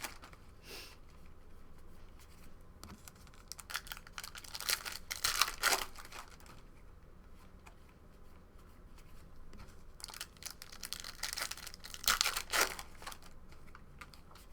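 Trading-card pack wrapper being torn open and crinkled, in two spells of crackly tearing and rustling a few seconds apart.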